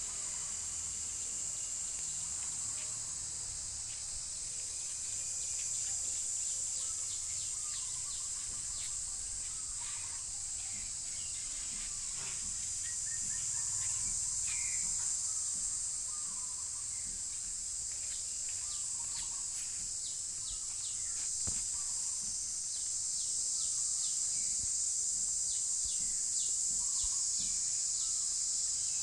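Steady high-pitched drone of insects such as cicadas or crickets, with scattered short bird chirps over it.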